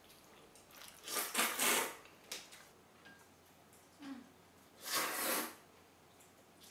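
Slurping of noodles and soup broth: a long loud slurp about a second in, a short one just after, and another about five seconds in.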